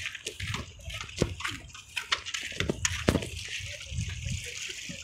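Small sea waves lapping and sloshing among shoreline rocks, an uneven hiss broken by many short knocks and low rumbling surges.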